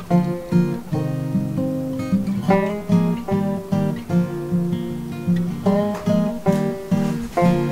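Background music: acoustic guitar picking and strumming, with a steady run of plucked notes and a chord held near the end.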